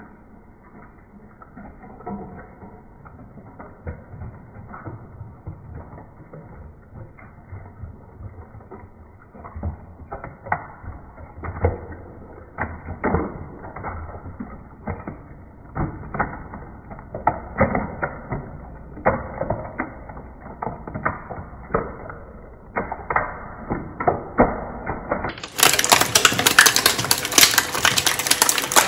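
A shredder's rotating steel cutters squeezing and tearing through a large ball of glitter slime, with irregular wet crackling and popping that grows busier after about ten seconds. Near the end the sound suddenly turns louder and crisper.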